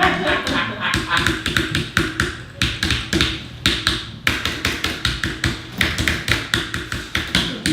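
Fast typing on a mechanical keyboard: an irregular clatter of sharp key clicks, several a second, with a brief pause about four seconds in.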